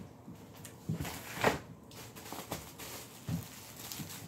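Scattered rustles and knocks of grocery packages being handled and set down, with one louder rustle about a second and a half in.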